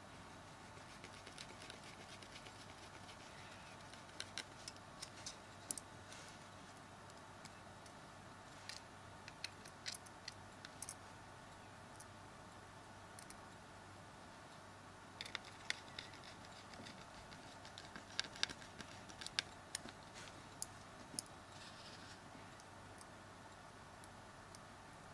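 Small Phillips screwdriver driving the tiny screws back into a Samsung Galaxy S3's frame: faint light clicks and ticks in scattered clusters over a steady low hum.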